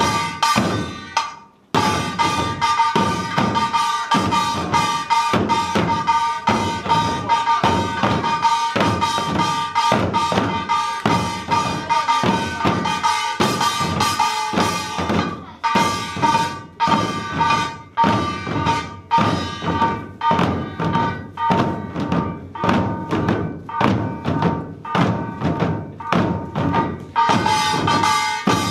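Korean buk barrel drums beaten together in a fast, driving rhythm, with a metal gong ringing steadily above them. The drumming breaks off briefly about a second in, then resumes.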